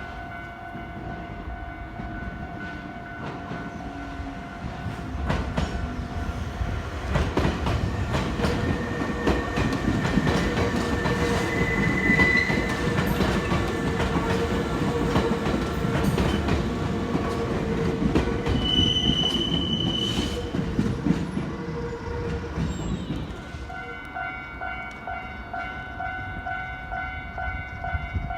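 Japanese level-crossing warning bell ringing in a steady repeating pattern while a train passes over the crossing, its wheels clacking over the rail joints for about fifteen seconds from around eight seconds in. A brief high-pitched tone cuts through near the middle of the pass, and the bell rings on clearly after the train has gone.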